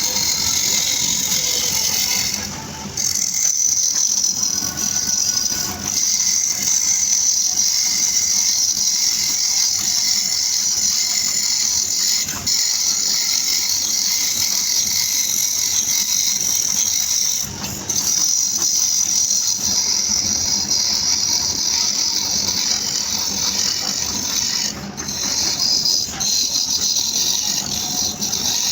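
Wood being cut on a turning lathe: a steady, high-pitched hiss of the tool against the spinning wood, broken by three brief pauses.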